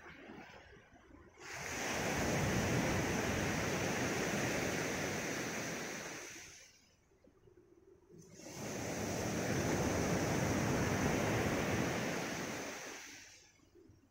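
Sea waves breaking and washing up a gravel shore: two rushing surges of surf about seven seconds apart, each rising quickly and fading over about five seconds.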